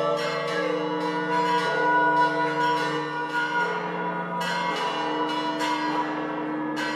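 Church bells ringing in irregular strikes, each ringing on, over a group of voices holding long, steady sung tones that pause for breath and start again.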